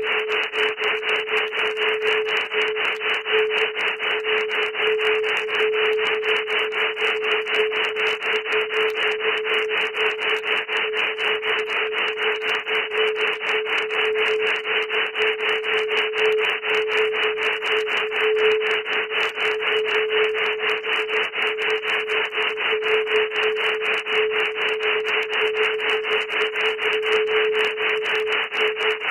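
Electronically generated sound-file signal: a rasping noise that pulses rapidly and evenly, with a steady mid-pitched tone running through it unchanged.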